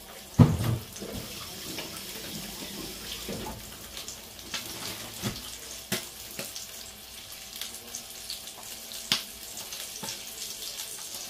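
Chicken thighs frying in a cast-iron casserole: a steady sizzle with scattered sharp pops of spitting fat, and one loud thump about half a second in.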